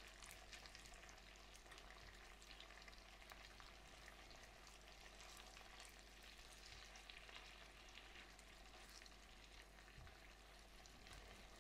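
Hot butter sizzling faintly in a wok pan, a steady hiss dotted with small crackles, as boiled ravioli are turned in it with a plastic spatula.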